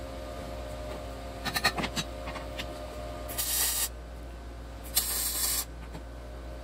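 A few light metal knocks as the steel plates are set in place, then two short bursts of MIG welding hiss and crackle, each about half a second, tacking the steel firebox plates together.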